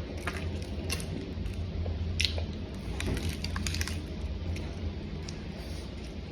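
A person chewing a mouthful of spicy beef patty close to the microphone: scattered wet mouth clicks and smacks. A steady low hum runs underneath.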